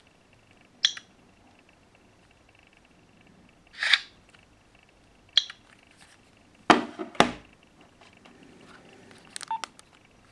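A few scattered clicks and knocks: a sharp click about a second in, a short scraping rustle near four seconds, another click, then two heavier knocks around seven seconds and a quick run of light clicks near the end.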